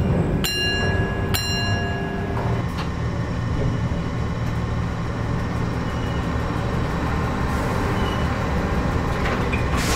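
Rhaetian Railway Ge 4/4 I electric locomotive moving slowly into the depot shed: a steady low rumble of its running gear and motors. Two short, sharp metallic clanks with a brief ringing tone come in the first second and a half.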